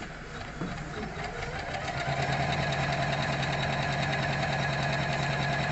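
MC 450 computerized embroidery machine stitching a design. It speeds up over the first couple of seconds, then runs at a steady, rapid stitching rhythm.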